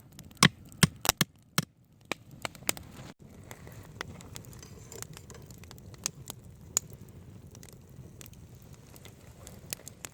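Campfire crackling and popping: a cluster of sharp, loud pops in the first three seconds, then a quieter steady crackle with occasional snaps.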